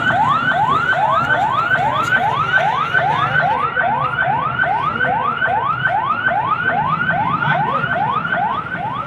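An emergency vehicle's siren sounding in a fast yelp: a rising sweep repeated about three times a second, each sweep climbing and then dropping back at once.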